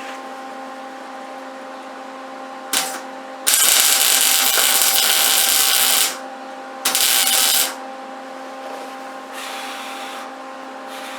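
Electric welder laying tack welds on car body steel, its arc crackling in three bursts. There is a brief one about three seconds in, a longer one of about two and a half seconds, then a shorter one of under a second. A steady hum runs underneath.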